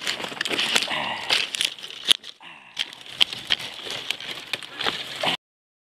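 Leaves and dry grass rubbing and crackling against the microphone, full of scattered sharp clicks and crinkles. The sound cuts off suddenly about five seconds in.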